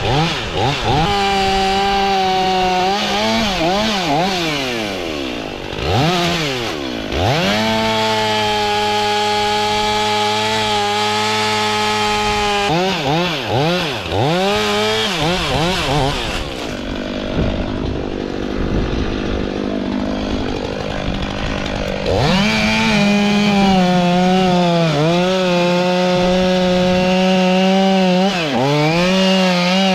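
STIHL MS 500i fuel-injected two-stroke chainsaw revving up and down several times, then held at full throttle for long stretches while cutting wood. About halfway through there is a stretch of several seconds where the engine note turns rougher and less clear.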